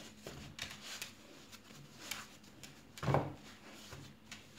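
Hands kneading risen yeast dough on a floured wooden countertop: soft rubbing and pressing, with one louder thud about three seconds in.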